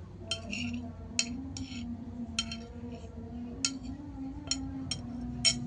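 A spoon clinking against a plate while eating, with about eight sharp ringing clinks at uneven intervals over a low steady hum.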